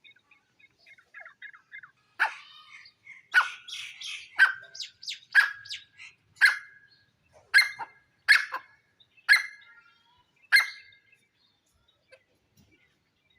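Grey francolin calling: after some faint chirps, a run of about nine loud, sharp call notes comes roughly once a second, then stops about three seconds before the end.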